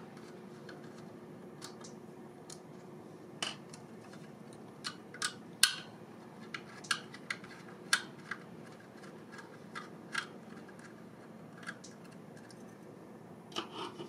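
Phillips screwdriver backing small screws out of the metal side brackets of a laptop SSD caddy: light, irregular clicks and ticks of metal on metal, about a dozen, with the sharpest around the middle.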